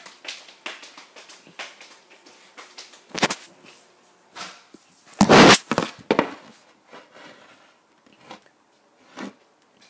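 Camera being handled with its lens covered: scattered knocks and rubbing on the microphone, with one loud thump a little over five seconds in.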